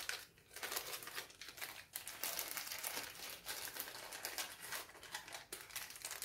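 Packaging crinkling and rustling as it is handled, a dense run of short crackles.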